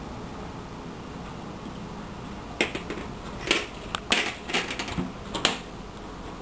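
Glassware handled on a table: a string of sharp clinks and knocks from wine glasses and a bottle, starting a little over halfway through.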